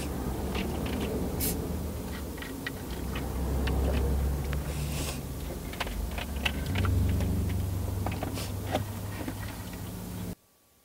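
Inside a car cabin: a steady low engine hum with light clicks and rustles of something handled close by. The sound cuts off abruptly shortly before the end.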